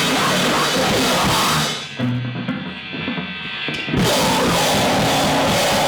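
Loud rock music with distorted guitar and a pounding drum kit. About two seconds in it drops to a thinner, muffled stretch, then comes back at full strength near the four-second mark.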